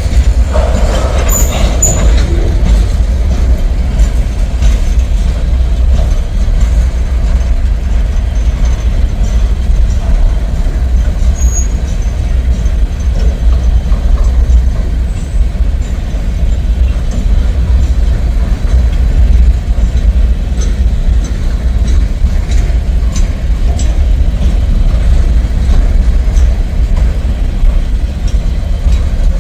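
Freight cars of a CSX gravel train, tank cars then open-top hopper cars, rolling past on the rails: a loud, steady, deep rumble of steel wheels on track, with a few faint clicks.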